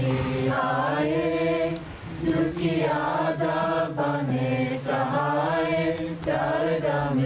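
Devotional chanting: sung phrases of long, slowly wavering held notes over a steady low drone, with short pauses between phrases.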